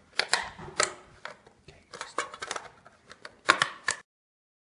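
Metal snips cutting through a thin tinplate can lid: about a dozen sharp, irregularly spaced snips as the blades bite through the sheet metal.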